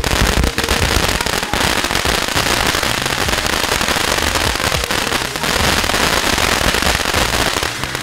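Ground fountain firework spraying sparks, with a loud, dense crackling hiss that keeps going, dipping briefly a couple of times.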